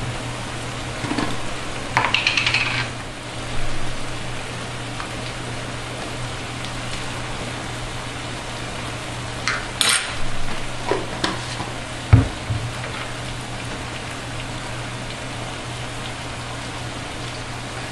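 Light clinks and scrapes of a metal fork and spoon against bread and a jar as minced garlic is dabbed onto buttered bread, with a sharper thump about twelve seconds in, over a steady hiss and low hum.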